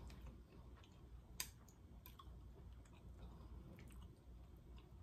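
Faint chewing and light clicks of chopsticks against a ceramic plate, one sharper click about a second and a half in.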